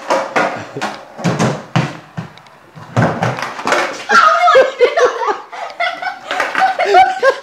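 Skateboard wheels rolling on a concrete floor, with the board clacking and slapping down several times as a rock to fakie is botched and the board gets away from the rider. From about four seconds in, laughter.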